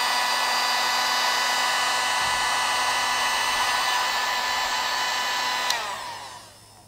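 Cheap handheld electric heat gun blowing steadily with a fan whine, shrinking heat-shrink tubing over a crimped wire connector. About six seconds in it is switched off and the whine falls away as the fan winds down.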